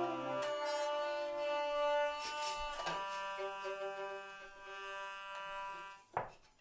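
Polish folk ensemble of fiddle, wooden flute, hurdy-gurdy, basetla and frame drum playing the closing bars of a Kurpie tune over a steady drone. The flute drops out partway through, and the piece ends about six seconds in with a single sharp final stroke.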